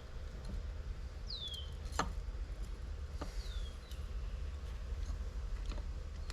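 Three short, high chirps from a bird, each sliding downward in pitch, about two seconds apart, over a steady low hum, with a few faint light clicks.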